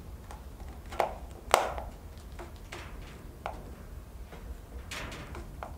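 Sharp clicks and knocks of hard plastic and metal parts being handled as a moped's speedometer housing is put back together by hand, the two loudest about a second and a second and a half in, then a few lighter taps.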